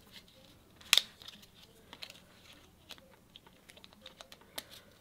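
Small plastic clicks and ticks from the Cardo EDGE intercom's mounting clips being handled and slid into each other. A sharper double click about a second in is the clips snapping together.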